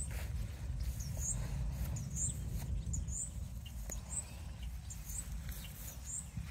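Low wind rumble on the microphone, with a high, short chirp repeating about once a second, like a small bird calling.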